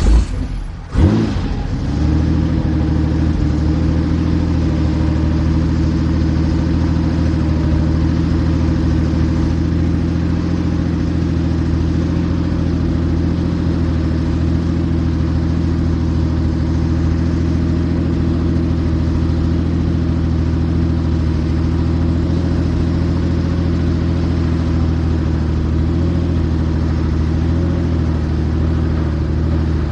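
Helicopter heard from inside the cabin: engine and rotors running with a steady low drone of several layered tones, after two loud bursts in the first second or so.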